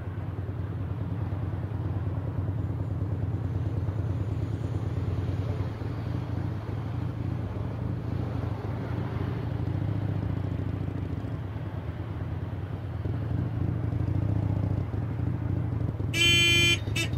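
Motorcycle engine running steadily with an even, low rumble. About a second before the end a horn honks once briefly.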